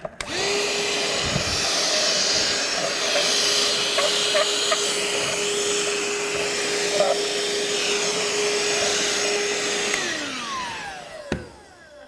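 RIDGID 18-volt compact hand vacuum (R860902) with its floor nozzle running: a steady motor whine over rushing air, with a few small crackles as grit is sucked up. About ten seconds in it is switched off and winds down with a falling pitch, followed by a single knock as it is set down.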